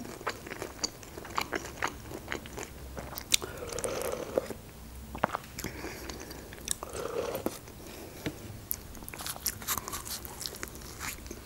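Close-miked eating sounds: sipping spoonfuls of lentil soup and chewing, with many small wet mouth clicks and two soft sips about four and seven seconds in. Near the end comes a bite into a doner wrapped in lavash.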